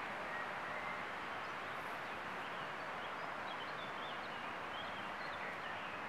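Faint, high songbird chirps and short twittering calls over a steady hiss, starting about a second and a half in.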